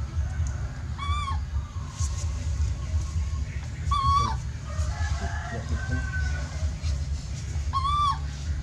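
Baby monkey crying: three short, clear calls about three seconds apart, each rising and falling in pitch, over a steady low rumble.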